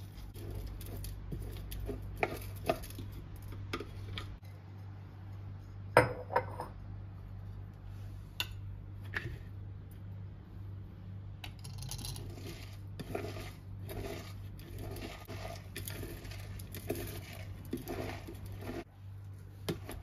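A metal spoon clinks and taps against a clear plastic bowl of shredded red cabbage as salt is added and stirred in. From about halfway, hands squeeze and scrunch the salted cabbage in repeated crunchy, rustling handfuls.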